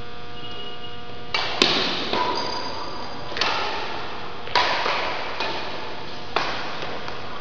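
Badminton rackets hitting a shuttlecock back and forth in a rally: a series of sharp hits and thuds roughly a second apart, over a steady electrical hum.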